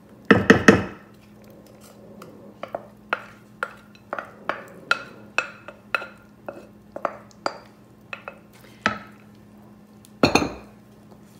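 Glass mixing bowl knocking against a glass baking dish as a thick cereal mixture is poured out, then a steady run of sharp taps that ring briefly, a bit over two a second, as a wooden spoon knocks the rest of the mixture out of the glass bowl. Another loud clatter of glass comes near the end.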